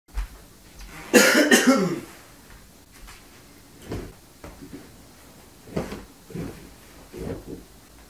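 A man's loud cough, about a second in, followed by a few much softer short sounds as he sits down on a couch.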